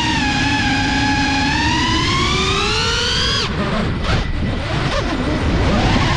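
FPV quadcopter's brushless motors and propellers whining, the pitch climbing as the throttle is raised. A little past halfway the whine breaks into a choppy warble as the drone flips over, then climbs again near the end. Wind rumbles on the onboard microphone throughout.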